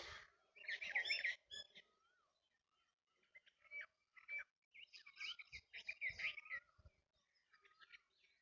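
Small birds chirping and singing in short, wavering phrases, in several bouts with brief pauses between them.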